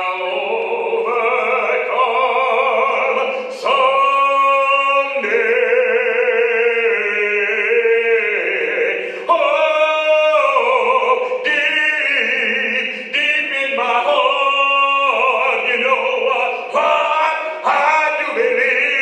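A man singing solo, holding long notes with a wavering vibrato and short breaks between phrases.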